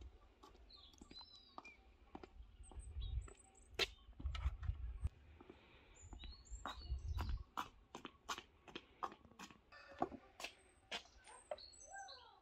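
Small birds chirping, with scattered light clicks and taps and a few low rumbles.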